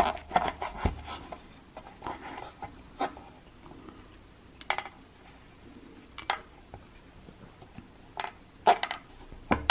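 Kitchen knife cutting a wedge out of a cherimoya on a wooden cutting board, then prying out the seeds: scattered light clicks and knocks of the blade and seeds against the board.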